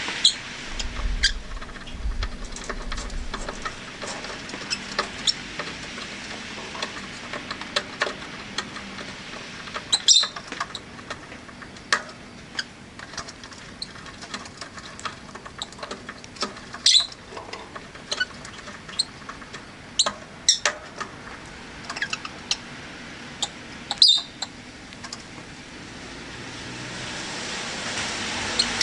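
Rosy-faced lovebirds giving scattered short, sharp chirps and clicks, with about five louder high calls spread through, over faint steady street noise. A passing vehicle fades out at the start and another swells up near the end.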